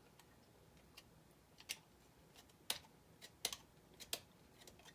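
Utility knife shaving small bits off a soft 3D-printed plastic part: faint, sharp clicks at uneven intervals.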